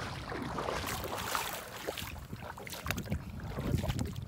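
Footsteps and rustling while walking, with wind buffeting the microphone as a low rumble and scattered short clicks.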